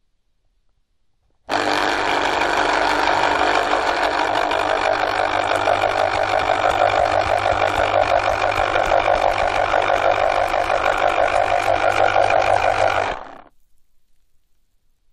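Electric fruit juice extractor motor switched on about a second and a half in, running steadily with a low hum and a fast, even flutter, then switched off near the end and winding down quickly.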